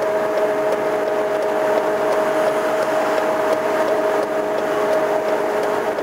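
Truck-mounted road sweeper running as it sweeps: a steady whine on two notes over an even rushing noise.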